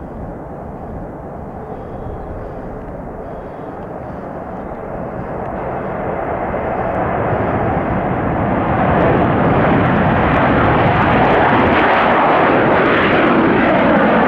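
Boeing 737-200's Pratt & Whitney JT8D turbofan engines at takeoff power as the jet rolls down the runway, lifts off and climbs away. The noise grows louder from about five seconds in and is loudest and steady from about nine seconds on.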